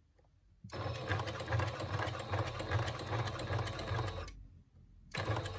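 Electric domestic sewing machine stitching through several thick layers of bag strap, running steadily for about three and a half seconds, stopping, then starting again for a short burst near the end.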